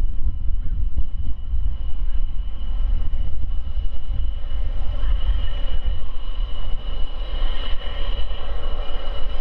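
Boeing 787-8 airliner taxiing, its turbofan engines giving a steady high whine over a deep rumble. The whine grows louder from about halfway through as the jet swings round to face the listener.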